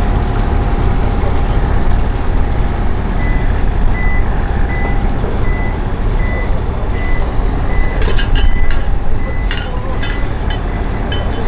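A steady low engine rumble runs underneath. From about three seconds in, a high electronic beep repeats at an even pace for several seconds. Near the end comes a run of sharp metallic clanks.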